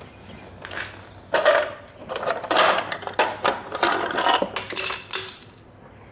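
Irregular clattering and metallic clinks as a plastic cover on the go-kart frame is worked loose and pulled off, its mounting bolts rattling; a small piece of metal rings briefly near the end.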